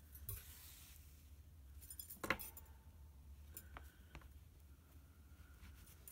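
A few faint, sharp clicks of a steel sewing needle against a thimble and the work while hand-tacking through layers of fabric, the sharpest about two seconds in, over a low steady hum.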